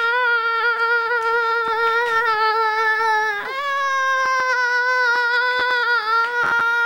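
A person's long, loud acted 'aaah' scream held on one high pitch, breaking briefly about three and a half seconds in and going on again a little higher. Faint clicks sound here and there.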